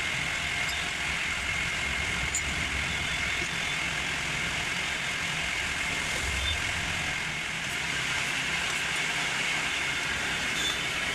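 Two-stroke chainsaw engine idling steadily.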